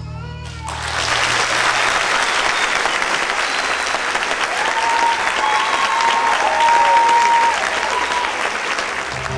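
A held note of the song ends in the first second, and a large audience breaks into loud applause, with a few held high cheers over it about five seconds in.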